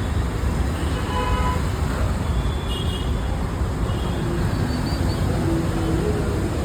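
Steady road-traffic rumble with a brief vehicle horn toot about a second in and a few fainter tones later.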